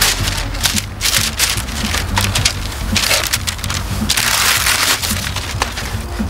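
Paper wrapping being torn and crumpled as a present is unwrapped, in several crackling, rustling bursts.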